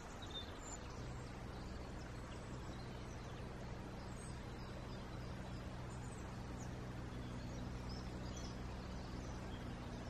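Quiet woodland ambience: faint, scattered chirps of small woodland birds over a steady low hum that comes in about a second in.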